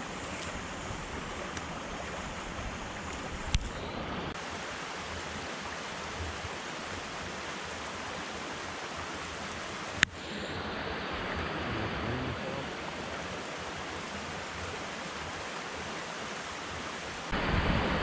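Creek running steadily, an even rushing of water, with two brief sharp clicks about three and a half and ten seconds in.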